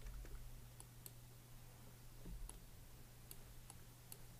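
Near silence with a faint low hum and about half a dozen faint, scattered computer mouse clicks at irregular intervals.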